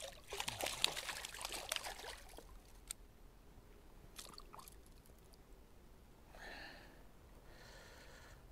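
Water splashing and trickling in a dense crackle for the first two seconds or so, then a few scattered faint clicks and two soft hissing patches near the end.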